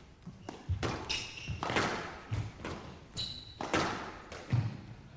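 A squash rally: the ball is struck by rackets and smacks off the court walls in an irregular series of about nine sharp hits. There are two short squeaks of shoes on the court floor, about a second in and again about three seconds in.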